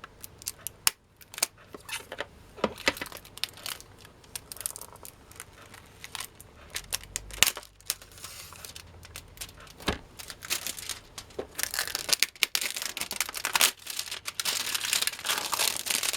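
Heat-sealed plastic shrink wrap being torn and peeled off a small boxed screwdriver kit: scattered crackles and tearing at first, then continuous crinkling and crumpling of the plastic near the end.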